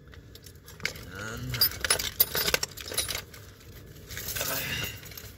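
Metal hand tools clinking and jangling inside a soft tool bag as it is handled, with a cluster of sharp clicks in the middle.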